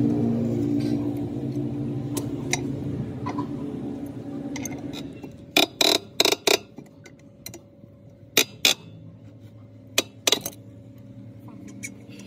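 A steel T-bar wheel wrench clinking against a tractor's rear wheel nuts and hub as the nuts are loosened. The sharp metallic clinks come in short clusters, four quick ones, then two, then two or three. A steady hum fades out over the first few seconds.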